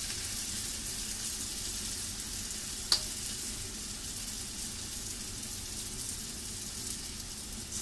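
Chickpea falafel balls deep-frying in hot oil over medium heat: a steady high sizzle. One sharp click about three seconds in.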